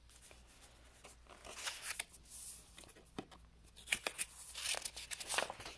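Pages of a picture book being handled and turned by hand: a series of soft paper rustles and short crinkles and taps, busiest in the second half.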